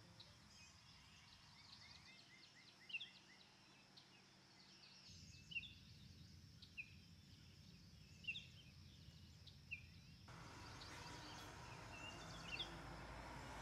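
Faint birdsong: small birds giving short chirps and quick whistled notes, with a rapid run of chirps in the first few seconds and single sharper calls every second or two after. A low, steady background hum lies underneath and rises a little near the end.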